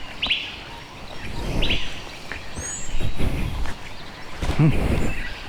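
Birds chirping, a few short falling chirps, over bursts of low rumbling outdoor noise.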